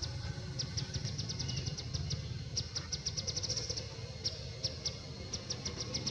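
Outdoor forest ambience: a small creature gives rapid high chirps, about nine a second, in repeated bouts of up to a second and a half, over a steady low rumble.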